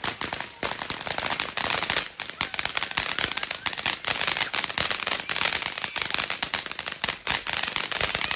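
Consumer fireworks going off in a rapid, continuous crackle of sharp pops, many to the second.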